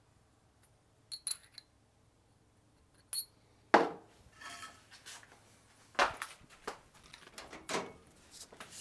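Metal parts being handled on a workbench: a few light clinks with a bright ring, then four sharp knocks, the first the loudest, as a steel gear is fitted onto a new shaft for the motorcycle's water pump.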